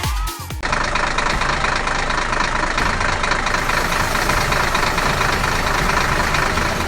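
A construction vehicle's engine starts up abruptly about half a second in and runs steadily at idle with a fast rattle.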